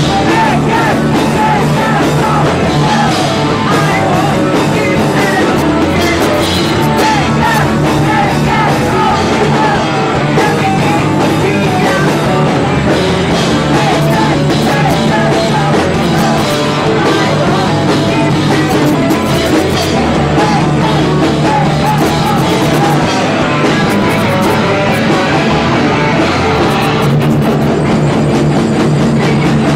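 Rock band playing loud and without a break: electric guitar and drum kit in a fast, punk-leaning rock song.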